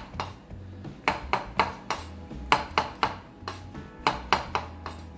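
Chef's knife slicing mushrooms on a wooden cutting board: a run of sharp knocks as the blade meets the board, roughly two to three a second.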